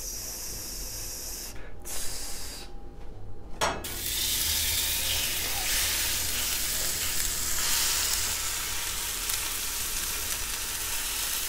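Sizzling in a hot stainless-steel frying pan over a gas flame, the sign that the pan is hot enough to sear meat rather than boil it. The sizzle drops out briefly between about two and four seconds in, then runs on steadily.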